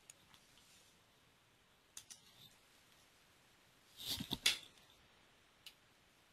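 Computer mouse being clicked and moved: a faint click about two seconds in, a short cluster of louder clicks and rustling about four seconds in, and one more small click near the end.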